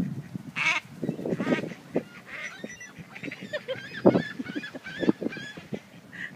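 Mallard ducks quacking: a few loud calls in the first couple of seconds, then a run of shorter, quicker calls, with two dull thumps about four and five seconds in.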